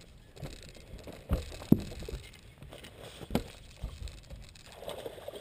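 Scattered knocks and thumps on a bass boat's carpeted front deck as two anglers shift their feet and gear while landing a fish, carried through the boat-mounted camera. The loudest is a sharp knock a little under two seconds in.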